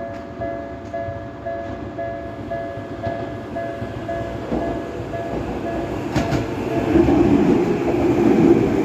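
Japanese electronic level-crossing warning bell ringing in a quick, even, repeating ding, about two and a half rings a second. Under it a Tokyu Ikegami Line train comes through the crossing, its running noise growing louder from about seven seconds in.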